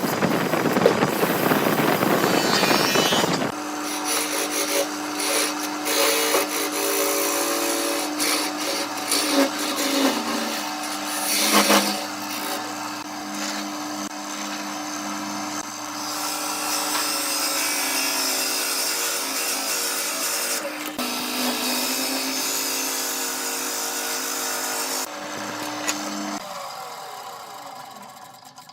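Power tool working wood: a steady motor hum under the rasp of cutting. The sound changes suddenly about three and a half seconds in and fades away near the end.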